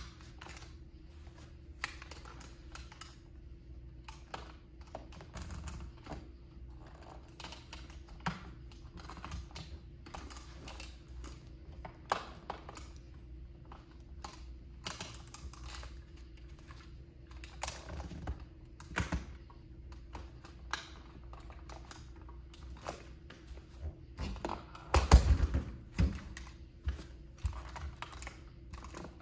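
Toy Plymouth Prowler model car clicking and cracking under a bare foot pressing and rocking on it: irregular sharp clicks throughout, with a louder cluster of cracks near the end.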